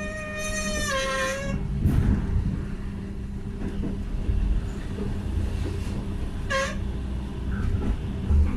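ÖBB class 4020 electric multiple unit squealing while it runs, heard from inside the car: a high, piercing squeal in the first second and a half that drops in pitch about a second in, and a shorter squeal about two seconds before the end. Under it runs a steady low hum and the rumble of the train.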